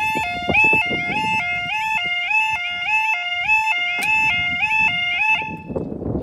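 UK level crossing two-tone yodel alarm warbling between two notes a few times a second while the barriers are lowered. It cuts off suddenly about five and a half seconds in.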